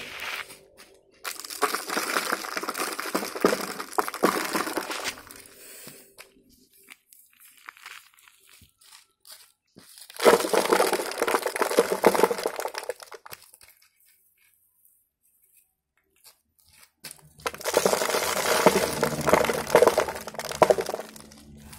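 Homemade cardboard toy truck pulled by a strap over gravel, its cardboard wheels and body crunching and scraping on the grit in three spells of a few seconds each, with quiet pauses between.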